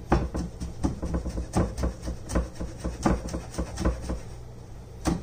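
Kitchen knife fine-chopping garlic cloves on a wooden cutting board: a run of quick knife taps on the board, several a second, easing off near the end.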